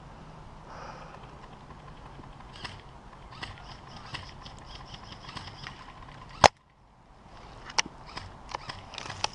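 Airsoft gunfire: scattered light snapping pops, with one much louder sharp crack about six and a half seconds in.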